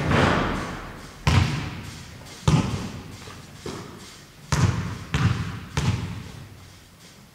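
A series of seven heavy thumps at irregular spacing, each followed by a ringing tail that dies away over about a second, three of them coming in quick succession near the middle.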